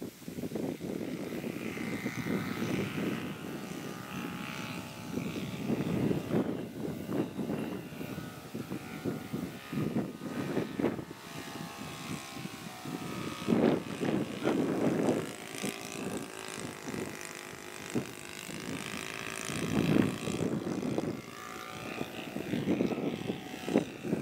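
Propeller-driven biplane's engine running as it takes off and flies overhead. It swells and fades several times as the plane passes and turns.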